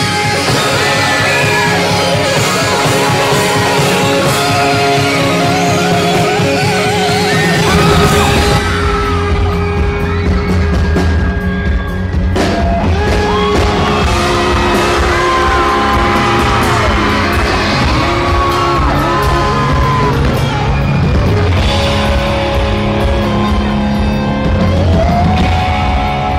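Live rock band playing loud in a concert hall: electric guitar and drums, with a heavier low end from bass and drums coming in about eight seconds in. Voices yell and sing over the music.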